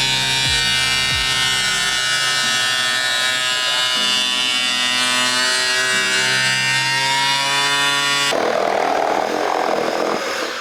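Background music of sustained, held chords. About eight seconds in it cuts off abruptly and a steady rushing noise takes over.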